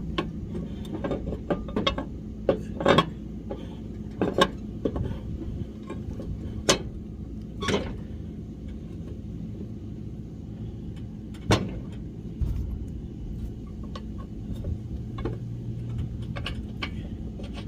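Scattered metal clinks and knocks as a mower blade and its retaining nut are handled and seated on the blade spindle, over a steady low hum.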